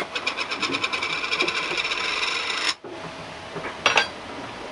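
Rapid, even scraping or rasping of a kitchen utensil during food preparation, many short strokes a second for about two and a half seconds, which stops abruptly. Two sharp clicks follow about a second later.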